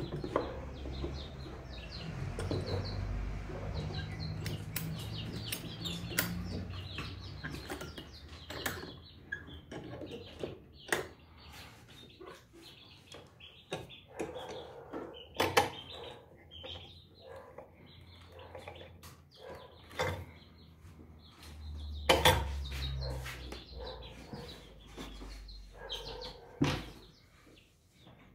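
Scattered knocks and clicks of a steel C-clamp being set and screwed tight on a wooden sideboard frame, with wood pieces bumping together.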